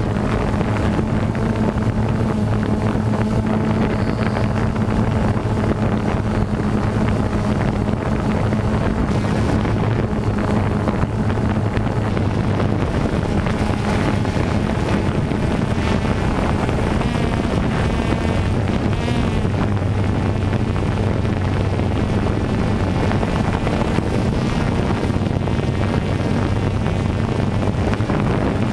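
DJI Phantom 2 quadcopter's motors and propellers giving a steady, even-pitched hum, with wind rushing over the onboard GoPro's microphone.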